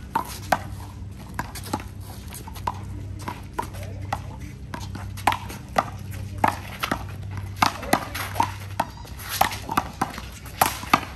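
Handball rally: the rubber ball is slapped by hands, smacks the wall and bounces on the court, a string of sharp smacks at uneven intervals, at times two or three a second.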